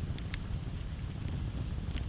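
Campfire crackling, with a few sharp pops, the loudest about a third of a second in, over a steady low rumble. Crickets chirp steadily in the background.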